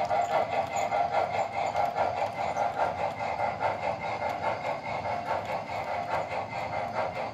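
O scale model train rolling past on the layout track, a steady rapid rhythmic clatter of wheels and running gear.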